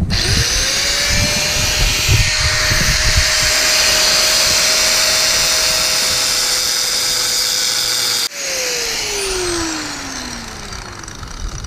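Angle grinder spinning up and cutting through a corroded link of a steel anchor chain, a steady high grinding. About eight seconds in it is switched off and its whine falls as the disc spins down.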